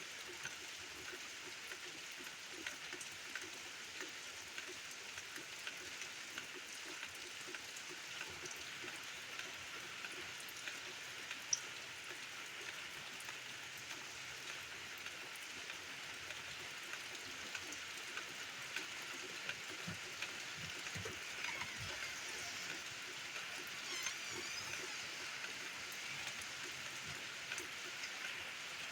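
Steady rain falling, a continuous hiss peppered with small drop ticks, with one sharper tick about a third of the way through.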